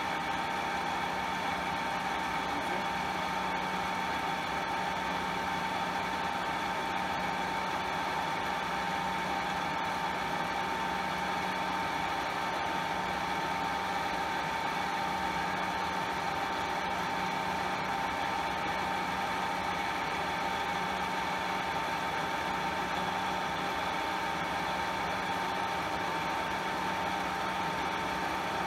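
Vertical milling machine running steadily, with a constant whine and a lower hum, as its cutter is fed across the glued-on Rulon wear layer of a Myford lathe saddle to flatten it before scraping.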